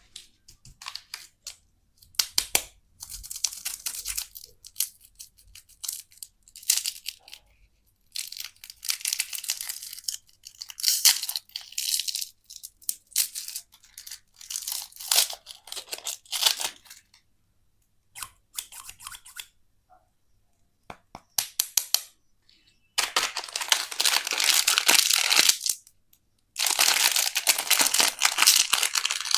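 Candy wrappers being torn open and crinkled, in a series of short rustling bursts with silent gaps between them, then two longer stretches of steady crinkling near the end.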